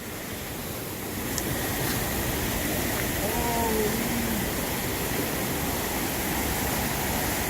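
Steady rushing of flowing water, a constant noise that grows a little louder about a second in.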